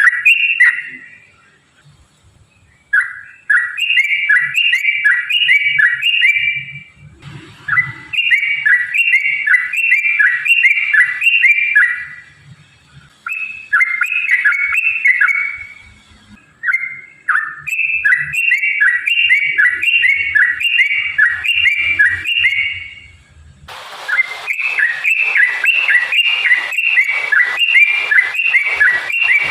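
Yellow-vented bulbul (trucukan) singing long, rapid runs of bubbly, chattering notes, phrase after phrase with short pauses between. Near the end the song carries on over added background hiss.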